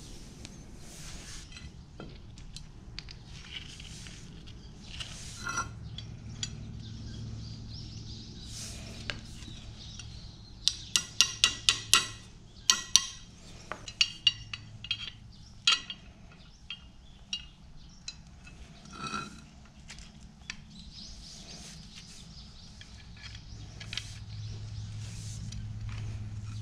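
Steel parts of a tractor PTO shaft's universal joint clinking and clicking as the spider and its bearing cups are handled and fitted into the yoke. About ten seconds in comes a quick run of sharp metallic clicks, the loudest part, followed by scattered clinks.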